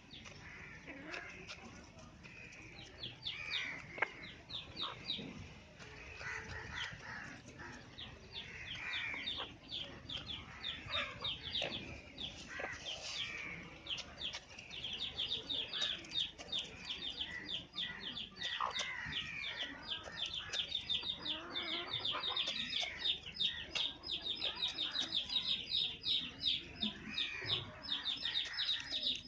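Fighting rooster pecking rapidly at grain held in a hand and a steel cup, with chickens clucking. A fast run of short, high ticks grows denser and louder from about halfway through.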